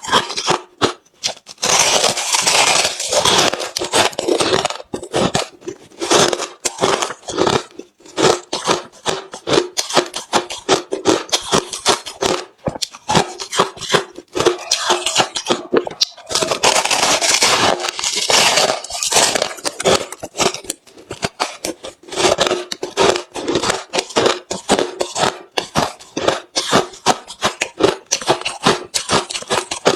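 Hard refrozen crushed ice being chewed close to the microphone: a rapid, irregular run of sharp crunches, densest about two to four seconds in and again about sixteen to nineteen seconds in.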